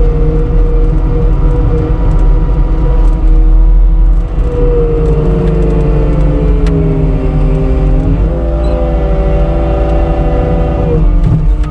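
CAT 246D skid steer's diesel engine running under load, heard from inside the cab, as it pushes a bucket of packed snow and raises the bucket at a snow pile. The engine note shifts pitch several times, stepping up about eight seconds in and dropping back near the end.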